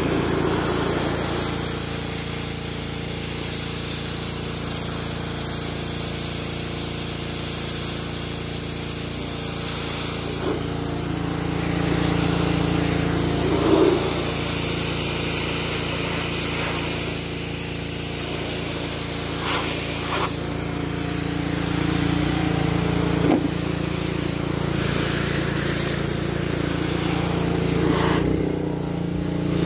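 Pressure washer running steadily, its motor humming under the hiss of the water jet as it blasts a plastic truck door panel, stripping the loose, faded surface layer of plastic.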